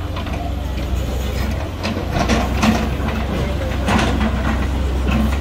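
Volvo tracked excavator's diesel engine running steadily as it digs, a heavy low rumble, with a crowd of onlookers talking over it.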